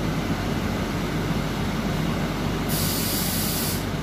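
Steady low rumble inside a battery-powered tram car, with a sharp hiss lasting about a second near the end.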